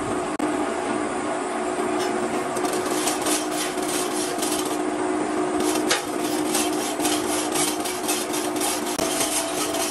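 Hand-tool rasping strokes on a metal propeller casting, repeating about three times a second from a couple of seconds in, with one sharper click about six seconds in, over a steady machine hum.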